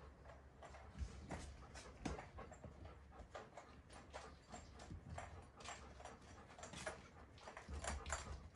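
Golden retriever panting and whimpering quietly, in short irregular breaths.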